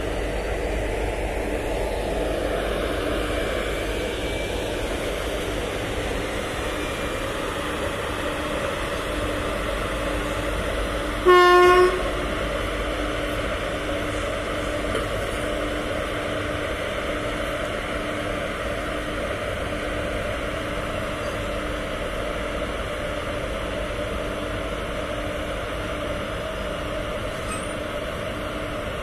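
Indian Railways WAG-7 electric locomotive and its train running with a steady rumble and hum, broken about eleven seconds in by one short horn blast, the loudest sound here.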